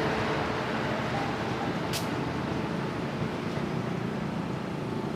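A passing train's rumble slowly fading as it moves away, with one sharp click about two seconds in.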